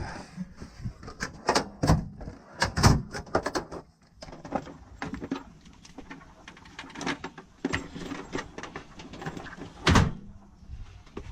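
Irregular clicks and knocks of hands and tools working on a car, with one louder thump about ten seconds in.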